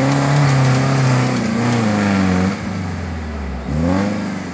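Off-road 4x4's engine revving hard under load as it climbs a steep, rutted dirt track. The revs hold high, sag and drop off about two and a half seconds in, then rise sharply again near the end.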